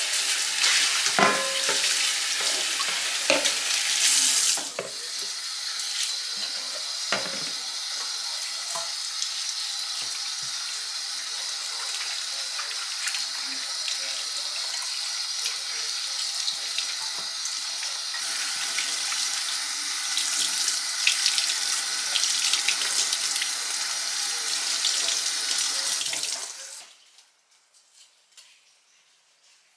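Tap running into a stainless steel sink while plastic items are rinsed under it. Heavier splashing and pouring comes in the first few seconds, with a few knocks. Then a steady stream runs until the water stops suddenly near the end.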